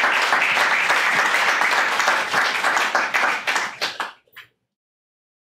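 Audience applauding after a poem; the clapping dies away about four seconds in.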